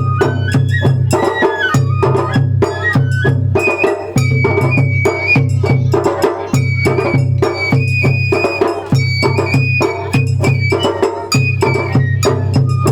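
Japanese festival hayashi music: a high bamboo flute playing a sliding melody over a fast, steady pattern of drum and percussion strikes.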